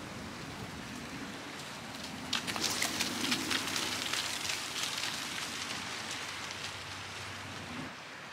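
Steady outdoor hiss of wind and sea, with a few seconds of close crackling rustle from about two seconds in.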